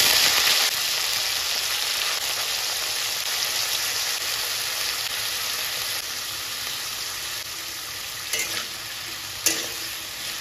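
Water-soaked diced potatoes dropped into hot oil in a kadai: a loud sizzle that starts at once and slowly dies down. Near the end, a spatula strikes and scrapes the pan a few times as the potatoes are stirred.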